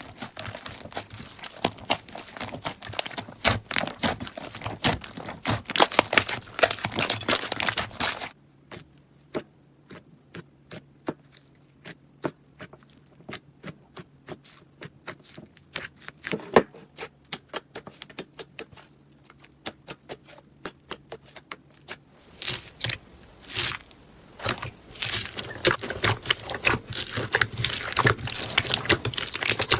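Slime being squished, poked and stretched by hand, making rapid sticky clicks and crackles. It comes as three separate clips, and the middle one has sparser clicks over a faint low hum.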